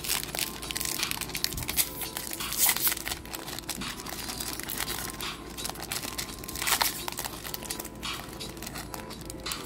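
Foil booster-pack wrapper of a Magic: The Gathering Khans of Tarkir pack crinkling and crackling as fingers handle it and tear it open, with louder crinkles about a quarter of the way in and again about two-thirds through.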